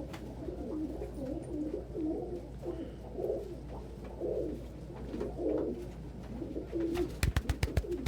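Domestic pigeons cooing, several low, repeated coos overlapping one another. About seven seconds in, a quick run of sharp taps starts.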